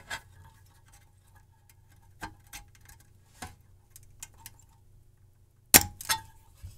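Small spring-loaded hand desoldering pump (solder sucker) at work: a click at the start, light scattered ticks as it is handled against the joint, then a sharp loud snap about three quarters of the way through as the plunger is released to suck the solder, followed by a couple of smaller clicks.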